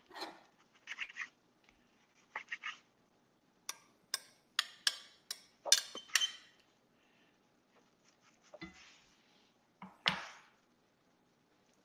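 Metal utensils clinking and scraping against a skillet and a plate as mushrooms and spinach are spooned out. A quick run of sharp clinks comes in the middle, with softer scrapes before and after it.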